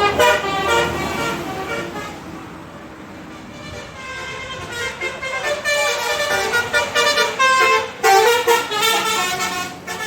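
Bus telolet horn (Basuri multi-tone musical air horn) playing a jaunty stepping melody of short horn notes. It plays for about the first two seconds, dips, then plays again from about four and a half seconds on, loudest near the end.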